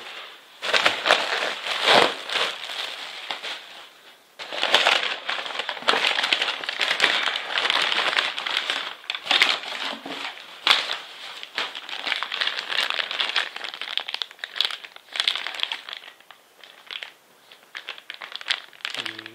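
Plastic air-cushion packing and plastic and paper wrappings crinkling and rustling as they are handled and lifted out of a cardboard box, in irregular bursts with a short pause about four seconds in and a quieter stretch near the end.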